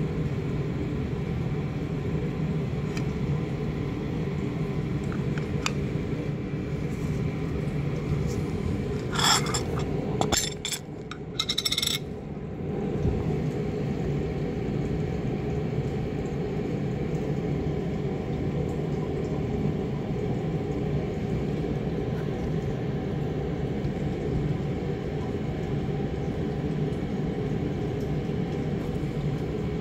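Small specimen containers, a plastic vial and a metal tin, clinking and clattering briefly about nine to twelve seconds in as they are handled, over a steady low room rumble.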